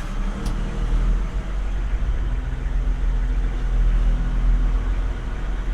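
Diesel tow truck engine running steadily on the road, a low, even drone with road noise.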